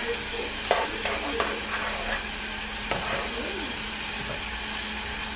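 Gravy with onions and green peppers bubbling and sizzling in a skillet on a gas stove while it is stirred. A few light knocks of the stirring utensil against the pan come in the first three seconds.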